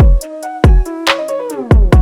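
Background music: an electronic beat with deep kick drums, a steady ticking hi-hat and a synth melody.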